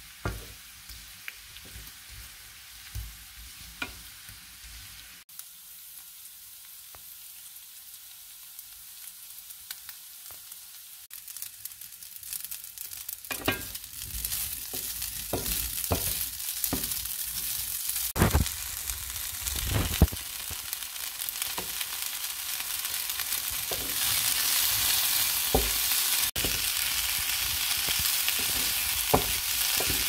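Sliced carrots and then spätzle sizzling in a frying pan, stirred and scraped with a wooden spatula that knocks against the pan now and then. The sizzle grows louder in the second half.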